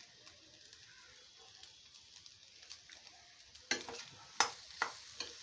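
Egg bhurji frying with a faint sizzle in a metal kadhai; from about three and a half seconds in, a steel spoon scrapes and stirs through it in several quick strokes against the pan.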